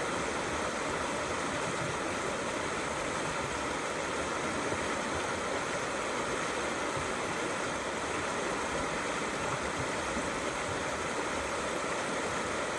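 Small river flowing steadily over stones, a constant rushing babble.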